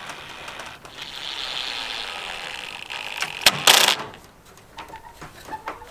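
Cordless Ryobi impact driver hammering in rapid pulses as it drives a screw through an aluminium gutter channel, for about two seconds, then a short, much louder sharp burst of hammering about three and a half seconds in, followed by a few small clicks.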